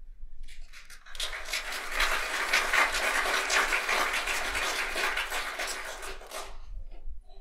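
Audience applauding: dense clapping that starts about half a second in, swells quickly, and dies away near the end.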